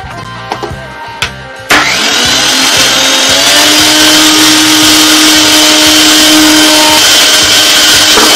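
Mixer grinder's electric motor switched on: it runs up with a short rising whine and then runs loud and steady, tested after its speed control switch was replaced. A few light clicks come before it starts.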